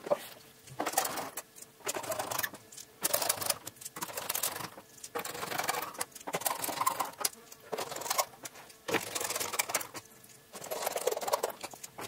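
Screwdriver driving the screws of a laptop's plastic base cover home one after another: about nine short bursts of rapid clicking, each around a second long, with brief pauses between.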